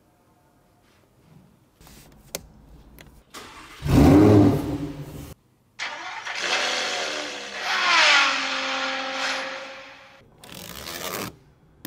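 Recorded sports-car engine sound played as the phone's boot-up sound. The engine starts loudly about four seconds in, then revs for several seconds with its pitch rising and falling. It ends in a short burst of noise.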